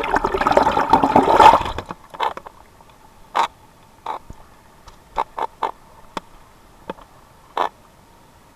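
Turbulent, bubbling river water rushing past an underwater camera housing for about two seconds. The camera then leaves the water, and what follows is quiet apart from about nine short, sharp taps scattered over the next six seconds.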